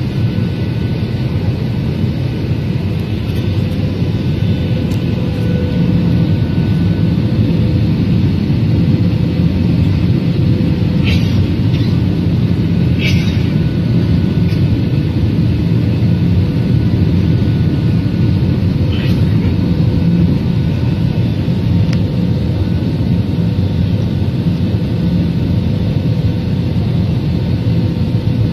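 Steady cabin noise inside an airliner: a low rumble of engines and rushing air, with a faint steady hum above it.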